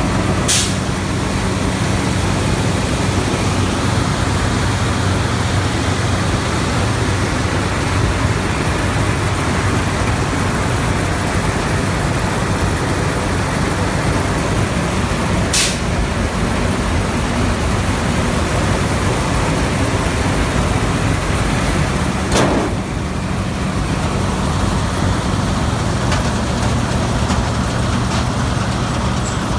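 New Holland TX68 combine harvester running, its engine giving a steady loud drone with a low hum. Three short sharp clicks break in: about half a second in, about halfway, and about three-quarters through.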